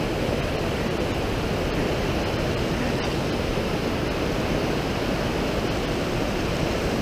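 Mountain creek rushing and cascading over rocks and boulders, a loud steady rush of white water close by.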